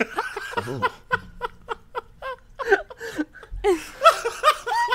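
Several people laughing in quick, repeated bursts, growing louder and overlapping toward the end.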